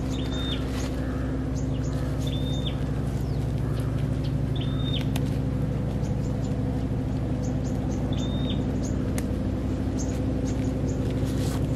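A bird repeats a short, high whistled call four times, each note held level and then dropping at the end, over a steady low machine hum. Soft scrapes and crumbling of soil come from digging out a tree's root ball by hand.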